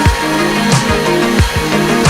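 Background electronic music with a steady beat: a deep kick drum falling in pitch on each hit, about every two-thirds of a second, under sustained synth notes.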